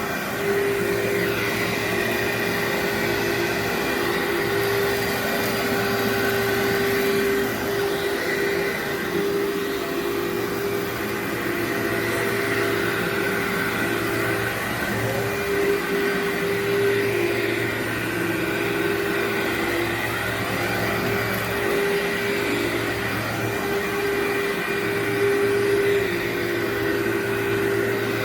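Workhorse vacuum cleaner running steadily over berber carpet, its motor hum wavering slightly in pitch at times.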